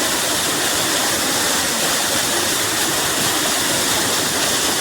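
Waterfall pouring into its pool: a steady, loud rush of falling water.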